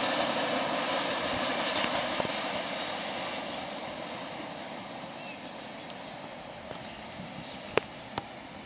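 Rolling noise of a freight train's tank cars on the rails, a steady rushing hiss that fades gradually as the end of the train moves away. Two sharp clicks come near the end.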